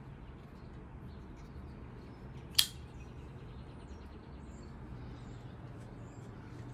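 Spyderco Para 3 folding knife opened, its blade snapping into the compression lock with one sharp click about two and a half seconds in. Faint bird chirps over a steady low background hum.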